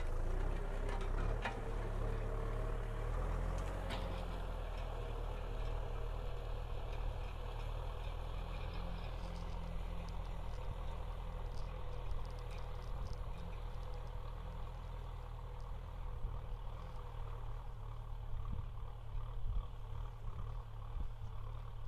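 Kubota M6040SU tractor's diesel engine running steadily under load while it pulls a disc plough through dry soil, with a steady whine over the low engine note. It grows slightly fainter as the tractor moves away.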